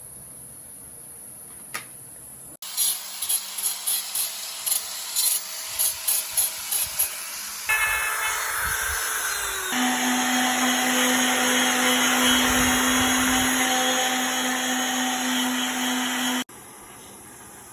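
Power carving tool working wood: a string of short bursts about twice a second, then a steady loud run with a low hum that cuts off suddenly near the end.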